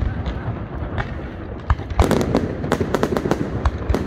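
Aerial firework shells bursting overhead: a continuous rumble of bursts with sharp bangs, a few at first and then a rapid run of them from about halfway through.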